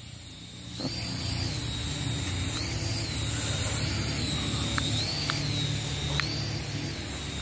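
Small electric motors of a toy mini RC helicopter spinning its rotors up about a second in, then running with a high whine that rises and falls repeatedly.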